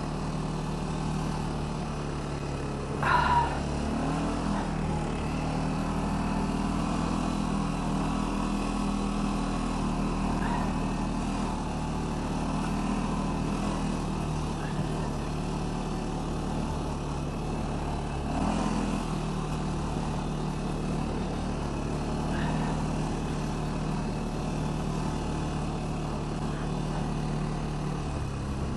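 ATV engine running steadily under way, its revs rising and falling a couple of times, with a short sharp louder sound about three seconds in.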